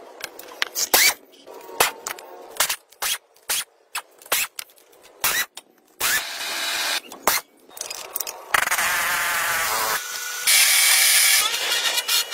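Short metallic clicks and knocks of hand tools on a tractor diesel engine, then an impact wrench running in three bursts over the second half as bolts are undone on the engine block.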